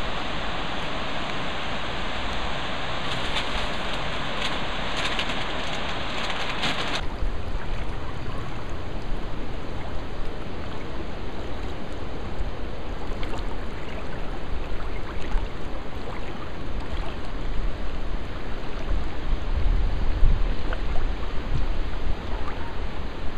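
Steady rushing hiss of river rapids that cuts off abruptly about seven seconds in, giving way to a quieter wash of small waves lapping at a rocky shore, with a low rumble that grows near the end.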